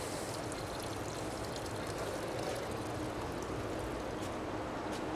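Steady rushing background noise with a faint low hum and a few faint clicks.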